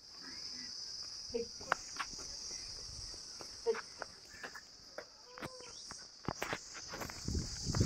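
Steady high-pitched chirring of insects, with scattered light clicks and knocks, and a low rumble building near the end.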